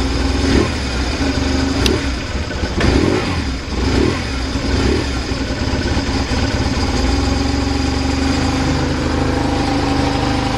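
BMW R1100RS air/oil-cooled boxer twin idling, with a few brief uneven swells in the first five seconds, then settling into a steady idle. The seller reports a stable idle with no abnormal noises.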